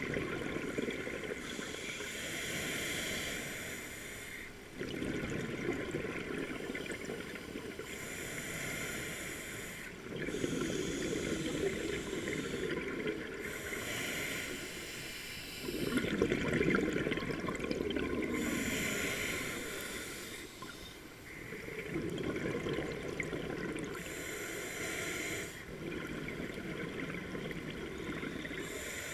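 Scuba diver breathing through a regulator underwater: a hissing inhale alternates with a bubbling rush of exhaled air, one breath every five seconds or so.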